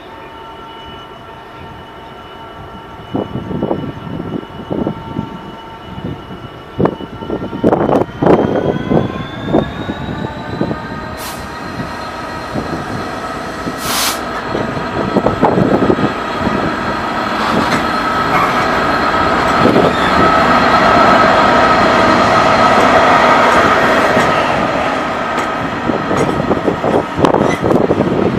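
DB red Class 66 diesel locomotive, with its EMD two-stroke V12 engine, hauling a train of coaches past along the platform. Wheels click over rail joints and points, the engine note rises as it opens up a few seconds in, and the sound builds to its loudest as the locomotive and coaches go by.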